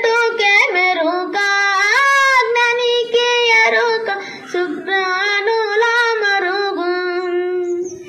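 A boy singing solo into a microphone, without accompaniment, holding long notes with melodic turns between them.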